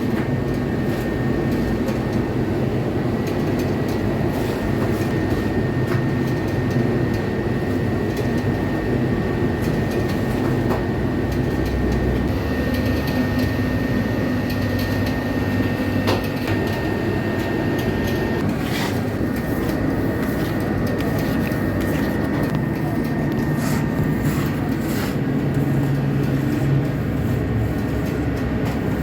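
Steady drone of bakery machinery running, with a low hum and a thin high whine that holds through most of it.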